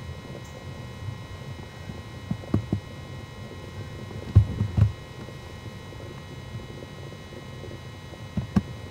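Steady electrical hum with faint high whines, broken by soft low thumps of a MacBook's keys and trackpad being pressed. There are a few about two and a half seconds in, two louder ones around four and a half seconds, and two more near the end.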